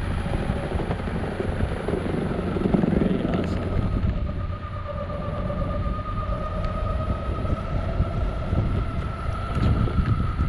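Metroboard electric skateboard rolling over concrete: a steady rumble of wheels and wind on the microphone, joined about two seconds in by a motor whine that creeps slightly up in pitch.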